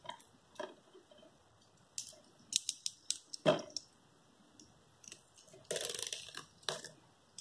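A plastic DVD case being handled: scattered sharp plastic clicks and crackles, a quick run of clicks about two seconds in, a dull knock about three and a half seconds in, and a longer crinkling rustle around six seconds in.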